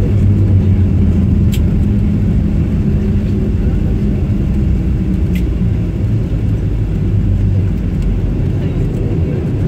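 Airliner cabin noise as the jet slows after landing: a heavy, steady rumble with an engine drone that eases off near the end.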